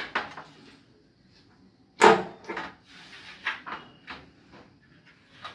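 A framed glass mirror knocking and scraping against a tiled wall as its two back mounting hooks are fitted over screws, with a sharp knock about two seconds in and several lighter knocks after.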